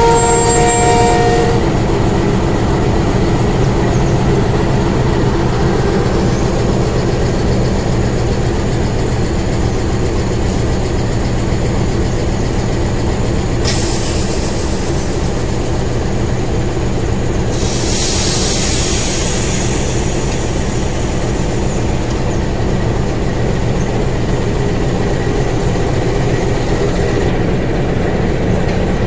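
A diesel-electric locomotive of the CC 206 class passes slowly at close range. A horn chord sounds at the start and cuts off about a second and a half in. After that comes the steady running of its diesel engine and the rumble of the wheels, with bursts of hiss about 14 and 18 seconds in.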